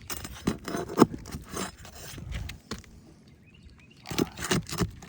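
Hand pry tool scraping and knocking under roof shingles while working roofing nails loose: a series of short, sharp scrapes and clicks, the loudest about a second in, a quieter stretch, then a quick run of strokes near the end. The shingles are brittle and tearing as they are lifted.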